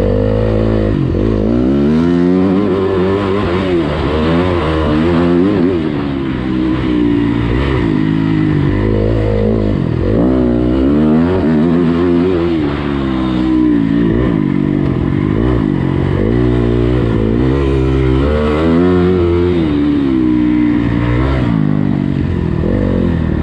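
Motocross bike engine being ridden hard, revving up and down over and over, its pitch rising and falling every second or two with the throttle and gear changes.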